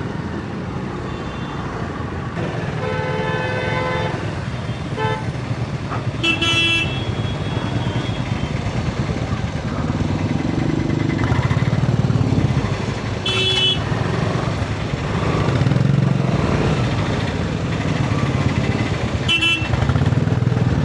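City traffic: a steady engine rumble, with vehicle horns honking several times, some short toots and one longer blast a few seconds in.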